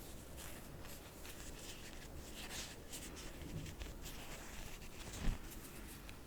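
Close-miked soft rustling and scratching of cotton pads being handled and readied with cleanser, with two soft low thumps, the louder one near the end.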